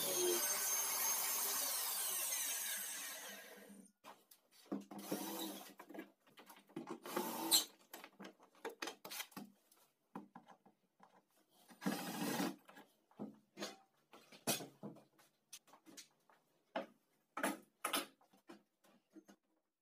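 A circular saw's motor running and then winding down, its pitch falling as it fades out over the first few seconds. After that, scattered knocks, taps and rubbing of wooden pieces being handled and slid on a wooden tabletop.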